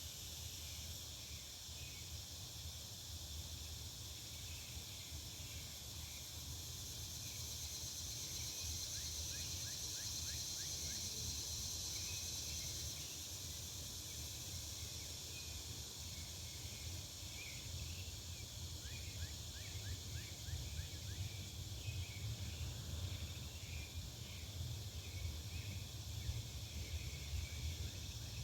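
Back-yard ambience: a steady high insect drone of crickets or cicadas, swelling for a few seconds, with scattered short bird chirps and quick trills over a low rumble.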